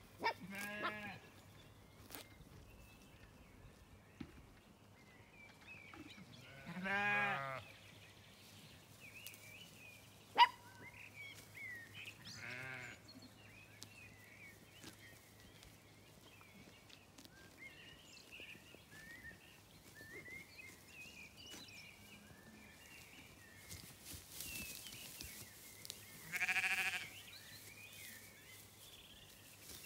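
Zwartbles sheep bleating four times, each a wavering call of about a second, the loudest about seven seconds in and near the end. A single sharp click about ten seconds in is the loudest moment.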